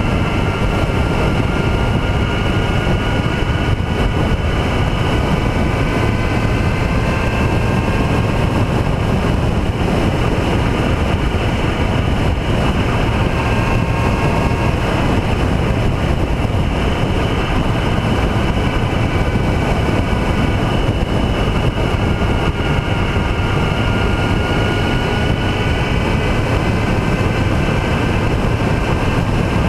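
Motorcycle riding at a steady cruising speed: a loud, steady rush of wind on the microphone over the engine, with a faint whine that drifts slowly up and down in pitch.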